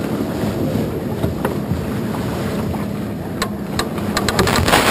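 Water rushing along the hull of an S2 7.9 sailboat under way, with wind buffeting the microphone. A few sharp clicks come late on, and a short loud gush of noise just before the end.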